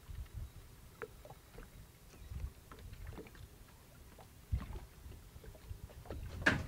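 Small boat drifting on open water: low gusts of wind rumbling on the microphone, with scattered light clicks and knocks, and one sharp knock near the end.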